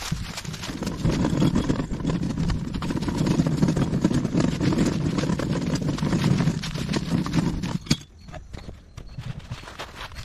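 Footsteps crunching through dry leaves and a garden dump cart rattling and rumbling as it rolls over the rough forest floor. About eight seconds in, the rumbling stops with a sharp knock, leaving lighter rustling in the leaves.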